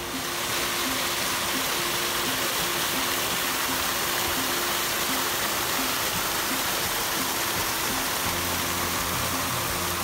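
Floodwater rushing down a creek channel: a steady, even rush of water. A low hum comes in near the end.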